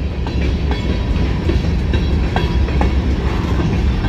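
Freight train of covered hopper cars rolling slowly past on street-running track: a steady low rumble of steel wheels on rail, with a few sharp clicks as the wheels cross rail joints.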